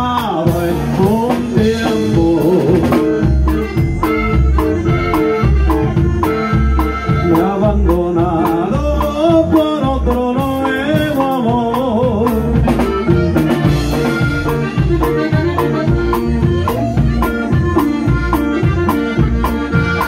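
Live band playing Latin dance music: electric bass and drum kit with a steady beat under a wavering melody line.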